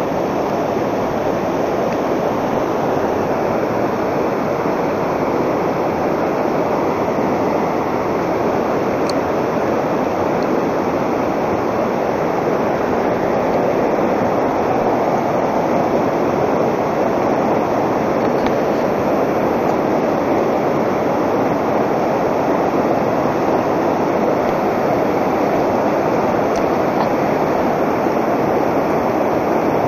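Fast, shallow river running over a rocky riffle, a steady, even rushing of water.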